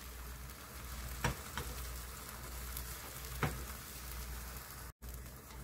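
Beaten egg sizzling softly in an oiled rectangular omelette pan over low heat, with two light taps about two seconds apart.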